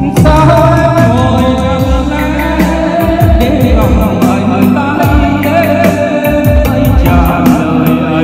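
Music with a steady drum beat and a wavering melody line, a passage of a Vietnamese song with no words made out.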